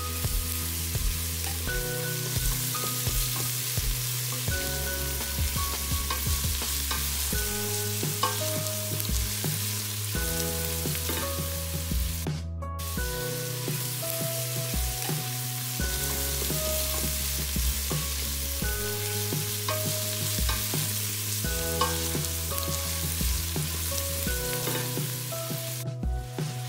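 Chunks of pork sizzling as they sear with onions in a stainless steel pot, turned now and then with a fork. Background music with a steady bass line plays over it, and the sound cuts out briefly twice.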